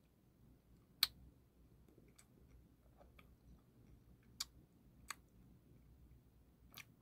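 A few sharp, isolated clicks close to the microphone over quiet room tone, one about a second in and three more spread through the second half.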